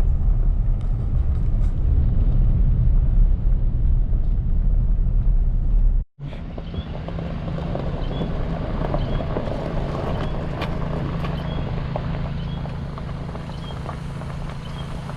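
Truck driving: a heavy, low engine and road rumble. About six seconds in, it cuts out for an instant and comes back as a lighter, steadier engine hum with faint, repeated high chirps.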